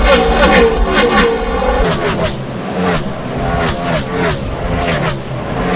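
NASCAR Cup cars' pushrod V8 engines running at racing speed, the pitch swelling and dipping in quick repeated waves. About two seconds in, the sound changes abruptly and loses its deep rumble.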